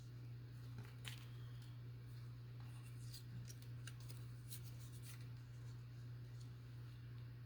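Faint, scattered rustles and light clicks of paper and craft pieces being handled, over a steady low hum.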